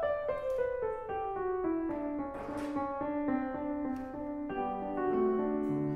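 Background piano music: a melody steps down note by note through the first half, then settles into fuller chords.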